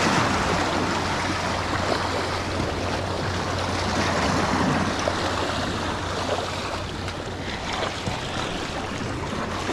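Waves surging and washing against granite jetty rocks, a steady rush of surf with wind buffeting the microphone.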